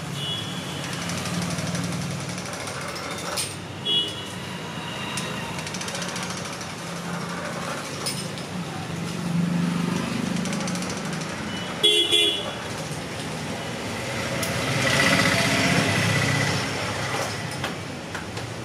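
Street traffic running, with short vehicle horn honks, the loudest a double honk about twelve seconds in, over a background murmur of voices.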